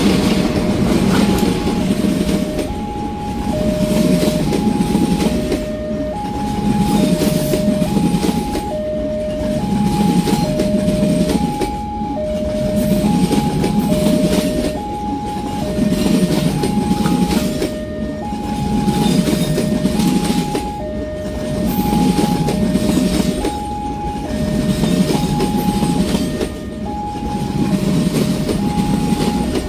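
A train rolling past, its wheels on the rails making a loud rumble that swells and fades about every two seconds. Over it a warning alarm sounds two alternating tones, high and low, each just under a second, typical of a railway level-crossing signal.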